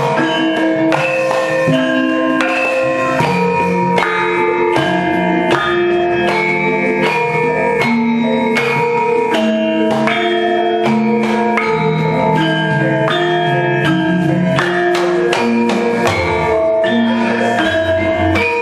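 Javanese gamelan ensemble playing: bronze metallophones and gongs struck in a quick, steady stream of ringing notes, with drumming underneath.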